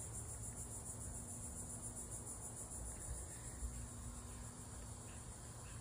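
Insects chirping in a steady, high-pitched chorus, with a faint low rumble underneath.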